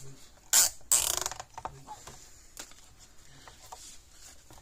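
Cable tie pulled tight through its locking head: two quick ratcheting zips, about half a second and a second in, then a few faint clicks.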